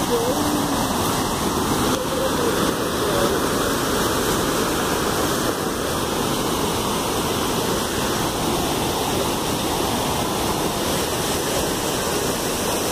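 Steady rushing of a waterfall, Pandav Falls, its water cascading about 30 m over rock ledges into a pool.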